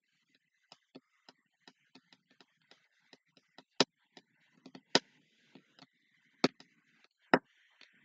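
Irregular light clicks and taps, a few each second, with four much louder sharp clicks in the second half.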